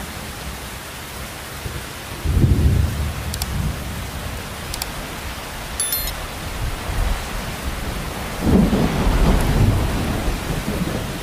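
Steady heavy rain with two rumbles of thunder: one breaks suddenly about two seconds in and fades over a few seconds, and a louder one rolls in about eight and a half seconds in.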